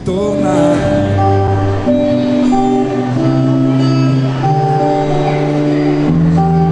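Instrumental background music with plucked guitar, held notes and a steady bass line.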